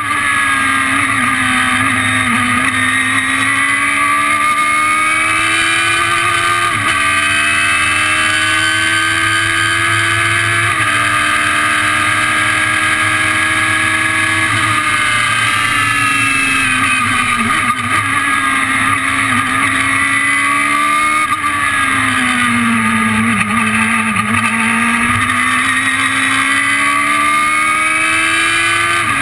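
Radical SR3 race car's engine heard onboard under hard acceleration: the revs climb and drop suddenly at two upshifts about seven and eleven seconds in. Past the middle the revs fall steadily for several seconds, then climb again near the end.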